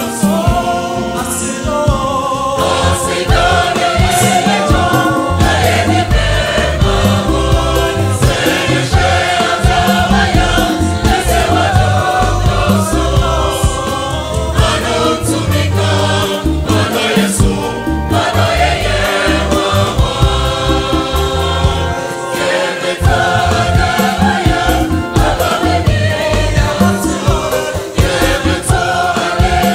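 Mixed choir singing a Ghanaian Ewe Agbadza-style gospel medley in parts, backed by electronic keyboard and a steady low beat.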